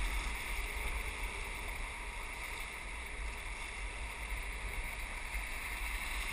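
Steady rush of whitewater rapids around an inflatable raft, with a low rumble on the camera's microphone.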